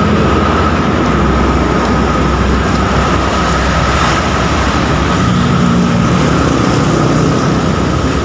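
Loud, steady vehicle engine and road-traffic noise with a constant high whine over a low hum.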